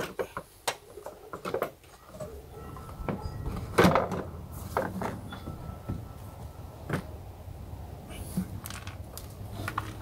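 A 2008 Nissan Versa's plastic air filter box knocking and rattling as it is worked loose from its rubber mounting grommets and lifted out. Irregular sharp knocks, the loudest about four seconds in.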